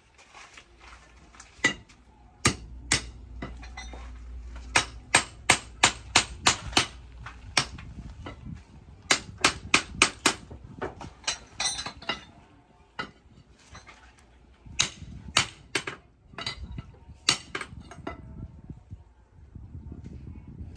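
Hand hammer striking a red-hot steel bar on an anvil while a crowbar is forged. Sharp strikes come in quick runs of about two to three a second, then more sparsely after a short pause in the middle.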